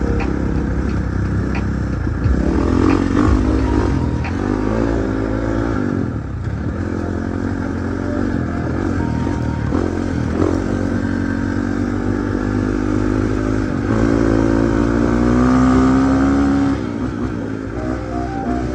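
Husqvarna 450 dirt bike's single-cylinder four-stroke engine running, its pitch rising and falling with the throttle; it is held higher and louder for a couple of seconds near the end, then drops back.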